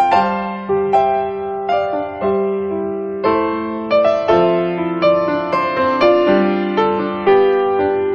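Background music: a piano playing a slow melody with chords, each note struck and fading, about one to two notes a second.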